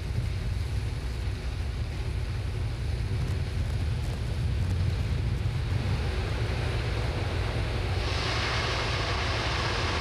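Wind rumbling on an outdoor microphone at a rocket launch pad, with a steady hiss that comes in suddenly about eight seconds in and holds.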